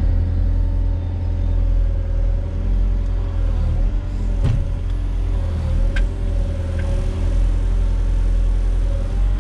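Volvo EWR150E wheeled excavator's diesel engine running steadily with a deep hum, its pitch wavering slightly near the middle as it takes load. A sharp click sounds about four and a half seconds in.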